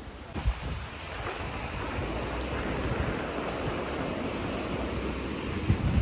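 Steady rushing of a mountain stream, with low rumbles of wind on the microphone underneath; the rushing comes in about half a second in and holds.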